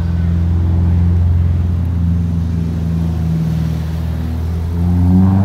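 Road traffic: car engines running close by with a steady low hum, one rising in pitch near the end as it accelerates.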